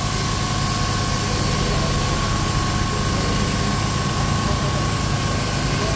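Beef patties sizzling on a hot flat-top griddle, over a steady machine hum with a thin constant whine.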